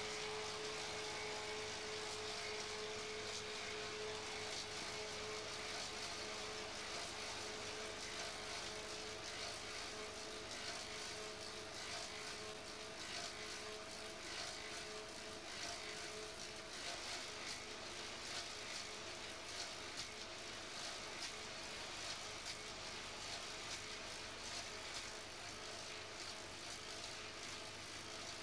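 Clog-maker's copying lathe running, its cutters shaping a wooden clog from a block of wood, with a steady drone at a constant pitch.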